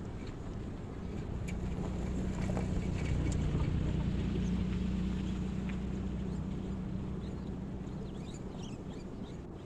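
A motor engine passes by, running steadily with a low hum. It grows louder over the first few seconds and then slowly fades.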